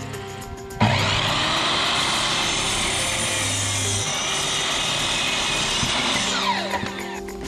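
Electric power saw cutting through a wooden rafter board. It starts abruptly about a second in and cuts steadily for about five seconds, then its whine falls in pitch as the blade spins down near the end.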